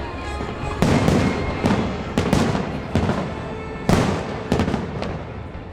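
Fireworks bursting overhead: about ten sharp bangs in quick, uneven succession, with a close cluster near the end and crackling between them.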